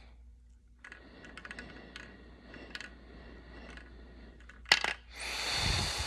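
Slow inhalation through a Voldyne incentive spirometer: a faint airy hiss with many small clicks and rattles from the plastic device. Near the end there is one sharp click, then a louder rush of breath.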